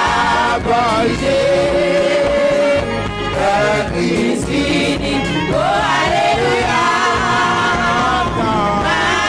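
Church choir singing a gospel song with voices holding long, wavering notes over instrumental accompaniment.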